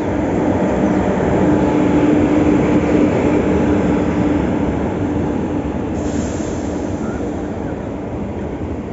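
Indian Railways WAP-4 electric locomotive passing close at speed: loud rumble of wheels on rail with a steady humming tone over it, loudest a couple of seconds in, then slowly easing as the coaches follow.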